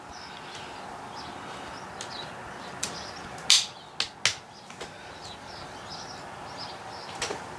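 Four or so sharp clicks and knocks in the middle stretch, from handling the chain oil bottle and the filler cap on a Husqvarna 445 chainsaw as the bar-oil tank is filled and closed. Faint birds chirp in the background.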